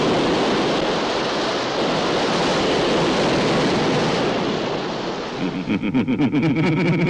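Heavy surf, waves breaking on a rocky shore as a steady rush of water. About five and a half seconds in it gives way to a fast-pulsing, pitched sound that leads into music.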